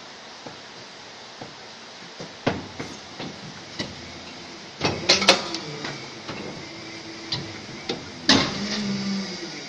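Injection moulding machine opening and closing a lamp-lens mould: a run of metallic clanks and knocks from the mould plates, loudest about five seconds in and again near eight seconds, each of these two followed by a short low machine hum.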